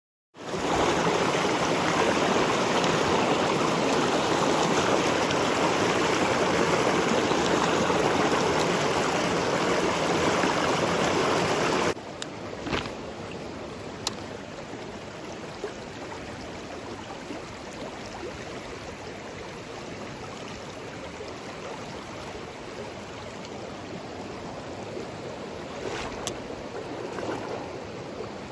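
Mountain stream water rushing, a steady loud rush that drops suddenly to a quieter flow about twelve seconds in. A few sharp clicks follow.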